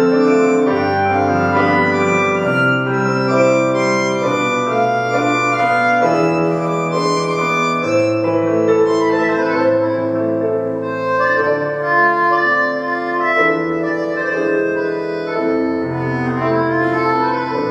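Live instrumental ensemble music: a harmonica melody with piano chords over a bass line that moves in long held notes.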